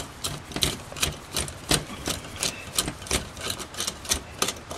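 Thin screwdriver turning a small brass idle jet out of an Aisan two-barrel carburetor body: a run of irregular light metallic clicks and scrapes, about three or four a second.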